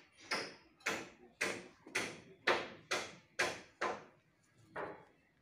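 A regular series of sharp knocks, about two a second, each ringing briefly. They stop about four seconds in, and one more knock comes a second later.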